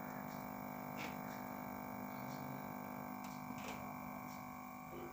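Faint, steady electrical hum made of several held tones, with a few soft clicks.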